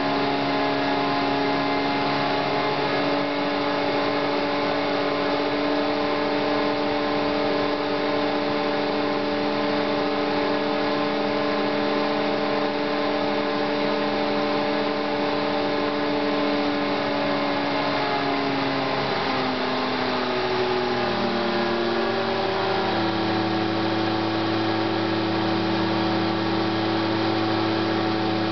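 Belt-driven JEC Combi multi-function unit, run by a brushless DC motor, running steadily with a whine of several steady tones. About two-thirds of the way through, the pitch slides down and settles lower as the drive slows to a lower speed.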